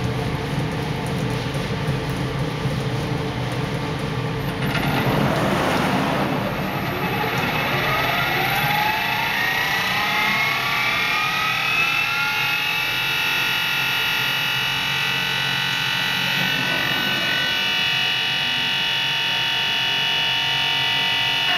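CNC glass engraving machine's spindle spinning up with a rising whine over several seconds, then running steadily at a high pitch over a steady machine hum. There is a brief rushing hiss about five seconds in.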